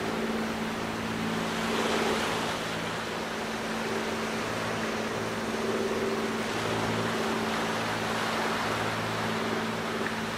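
Low, steady engine hum at a few fixed pitches that swells and fades slightly, over a continuous rushing wash of waves.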